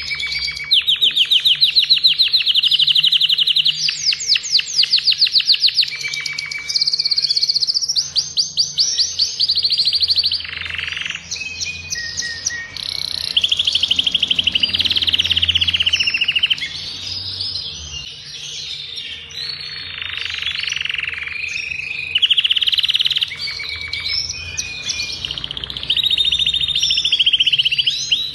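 An adult male agate domestic canary (the Brazilian 'canário belga') singing without pause. Its song is long runs of fast trills and rolls, each held for a second or two before it switches to another phrase.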